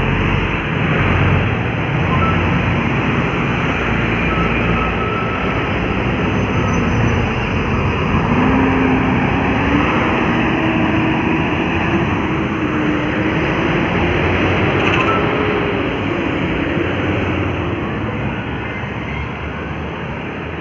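Heavy diesel traffic, trucks and buses, climbing a steep grade: engines running under load over a steady rush of road noise, the engine tone drifting slowly up and down, easing off slightly near the end.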